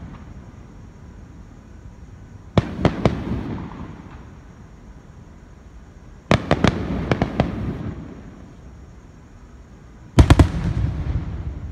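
Fireworks shells bursting overhead in three volleys: several quick sharp bangs about two and a half seconds in, a longer run of bangs around six to seven seconds in, and another group near ten seconds. Each volley is followed by a low echoing rumble that fades away.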